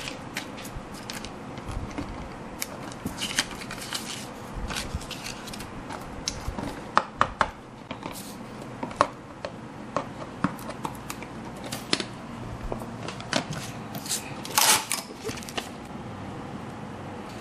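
Hands working on a craft model: scattered sharp clicks, taps and short scrapes of tools and materials being handled, with a longer, louder scrape or rustle near the end.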